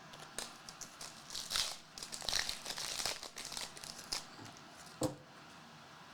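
Crinkling and rustling of trading cards and their plastic wrapping being handled, in irregular bursts, with a short click near the end.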